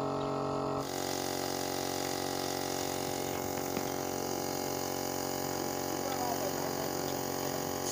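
Small air compressor running with a steady, even hum while pressurising a welded fuel tank for a leak test.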